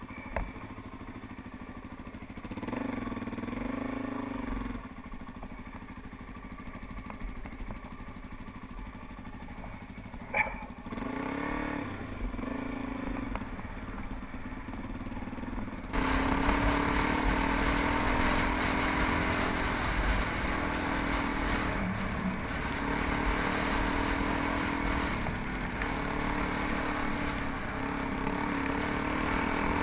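Suzuki DR-Z400E's single-cylinder four-stroke engine running while the bike is ridden over a rough track, with two short rises in revs in the first half and a couple of knocks. About halfway through the sound suddenly gets louder, with a lot more hiss over the engine.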